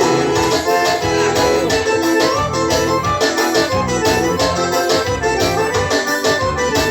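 Keyboard music in an organ-like voice, chords and melody played over a steady beat.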